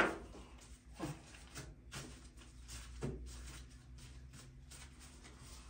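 Bread dough being pressed and rolled into balls by gloved hands on a floured countertop: a thump at the start, softer thumps about a second and three seconds in, and quiet rubbing between them.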